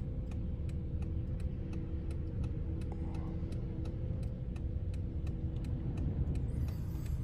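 A car engine idling, heard from inside the cabin as a steady low hum, with the turn-signal or hazard-light relay ticking regularly at about three ticks a second.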